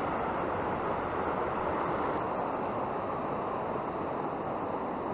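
Fast, shallow mountain river rushing over rocks: a steady, even rush of water.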